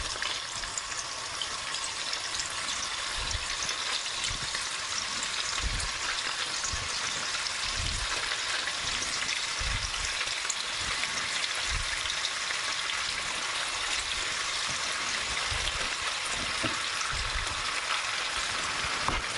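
Pork-loin rolls with bell pepper sizzling in hot oil and butter in a frying pan as they are laid in. The sizzle is a steady hiss, with a soft low thump now and then.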